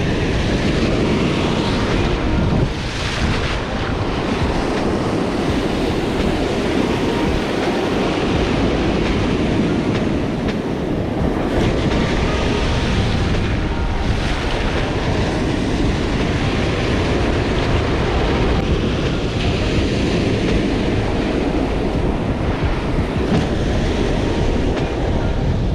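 Ocean surf breaking and washing up a sand beach, a steady rush with wind buffeting the microphone.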